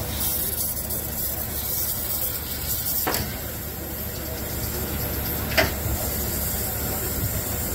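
Steam hissing steadily from the standing Deutsche Reichsbahn class 23.10 steam locomotive 23 1097, leaking around its cylinder and pump area. Two short knocks come through, about three and five and a half seconds in.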